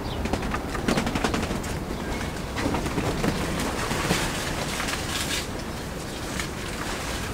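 Cucumber vines and leaves rustling and crackling as they are pushed aside by hand, with runs of quick crackles about a second in and again from about two and a half to five and a half seconds in.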